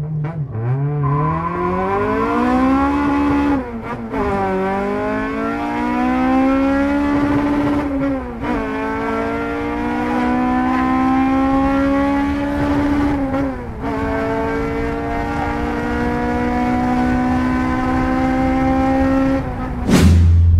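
Honda Civic Type R EP3's K20 four-cylinder engine pulling hard through the gears: the engine and exhaust note rises steadily in pitch in each gear and drops at three upshifts, about four, eight and a half and fourteen seconds in. The car runs aftermarket headers and a valved Varex exhaust. The sound breaks off sharply near the end.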